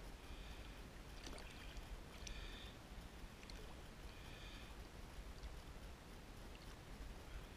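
Faint water sloshing at the side of a kayak, with a few small clicks and rubs from hands handling fishing line, over a low steady rumble.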